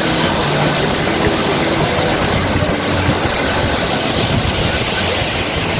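Waterfall, a loud, steady rush of falling water.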